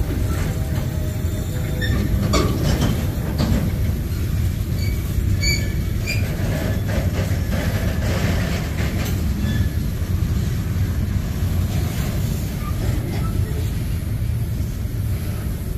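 Freight train cars, mostly covered steel-coil cars, rolling past: a steady heavy rumble of steel wheels on rail, with scattered clanks and a few brief high wheel squeals.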